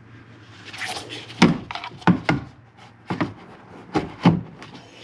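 A series of sharp knocks and clicks, about six in a few seconds, with a short scrape before them, as a replacement speaker is handled and positioned against the inside of a car door for riveting.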